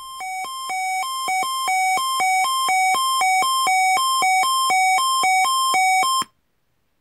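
Electronic alert tone: two buzzy pitches alternating in a quick repeating pattern, about three notes a second, fading in and then cutting off suddenly near the end. It is the attention signal that opens an Emergency Alert System weekly test broadcast.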